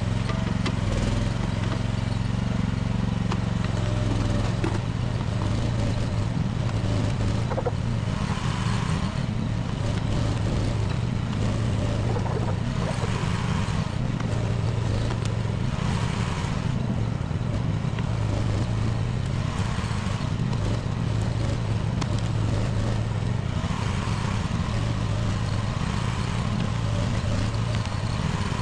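Small engine of a budget one-ton mini excavator running steadily while the machine digs at a tree stump, its note changing about four seconds in and swelling every few seconds as the hydraulics work.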